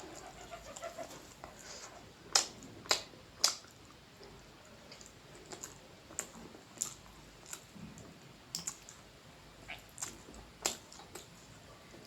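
Close-miked eating sounds: a run of sharp mouth clicks and smacks while chewing, the three loudest a little over two, three and three and a half seconds in.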